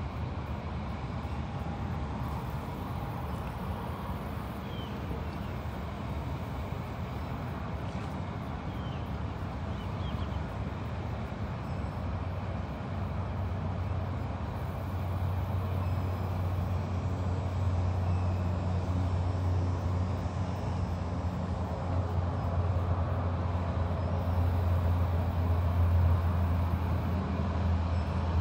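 Steady low outdoor rumble that grows louder about halfway through, with a few faint high chirps.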